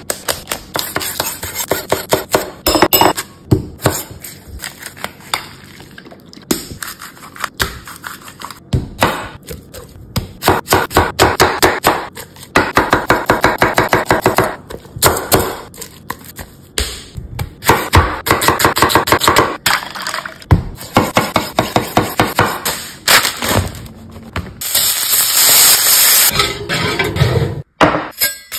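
Chef's knife chopping lettuce and celery on a wooden end-grain cutting board: crisp cuts, often in fast runs of many strokes. A few seconds of steady hissing noise near the end.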